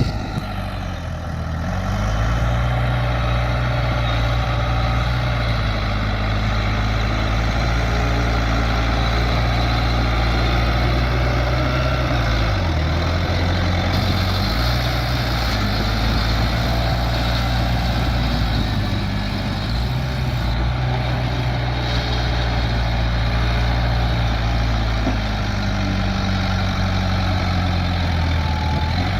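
Bulldozer's heavy diesel engine running steadily while working, its pitch rising about two seconds in and dipping briefly a few times as the load changes.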